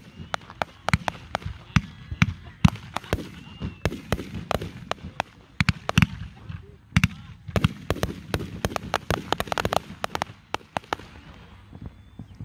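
Aerial fireworks shells bursting in a dense, irregular barrage of sharp bangs and pops, several a second at times, with a low rumble carrying between them.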